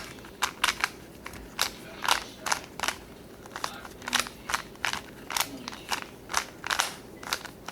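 A plastic 3x3 Rubik's Cube being twisted by hand: its layers clack as they turn, about three clicks a second, often in quick pairs, while the first-layer corners are being finished.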